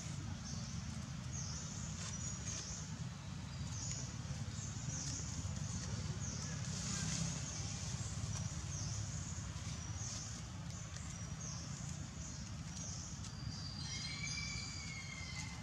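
Forest ambience: a high chirping call repeated about once a second over a steady low rumble. Near the end comes a short, wavering, whistle-like call.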